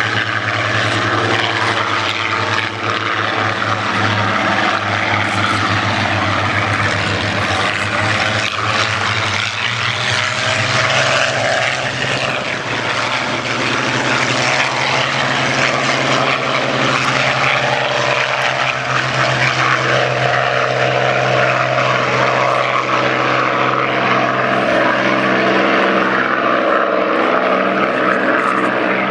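Piston engines of several Supermarine Spitfires running in a low formation flypast: a steady, loud drone, with engine notes shifting in pitch as aircraft pass.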